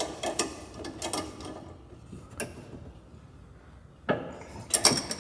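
Metal tools clicking and tapping as a wrench tightens a sway bar end link nut, its stud held from spinning with a 5 mm Allen key. A few separate clicks at first, then a quick run of louder clicks near the end.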